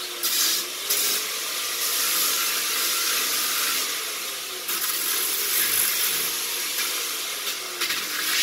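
Handheld power sander with coarse 40-grit paper running against a wooden beam, easing its corners: a steady hiss of abrasive on wood over a motor hum that wavers up and down in pitch.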